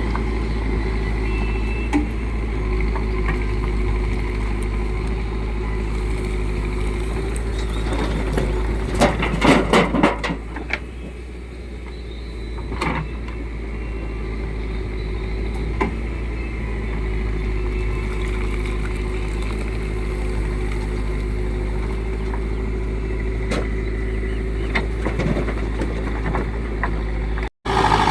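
Diesel engine of a backhoe loader running steadily at work, with a burst of clattering knocks about nine to ten seconds in and a few single knocks later, as brick chips are loaded into a tractor trolley.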